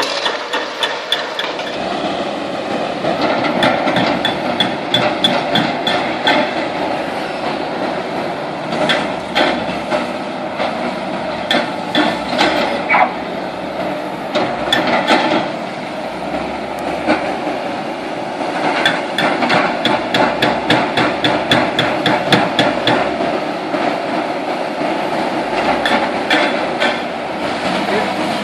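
Demolition excavator's hydraulic breaker hammering the concrete of a bridge: rapid runs of sharp blows that come and go in bursts, over the steady running of the excavator.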